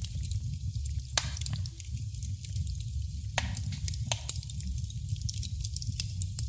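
Wood fire in a fireplace crackling, with a low steady rumble of the flames and many small ticks, and louder pops about a second in and again about three and a half seconds in.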